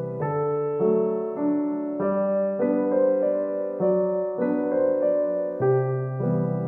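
Background piano music, a calm run of notes changing about every half second.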